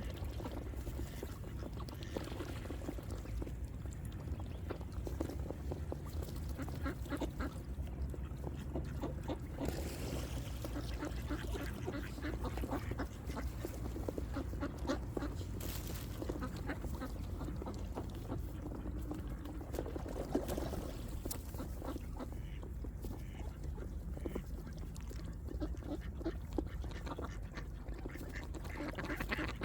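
Ducks quacking over and over, many short calls overlapping, over a steady low rumble.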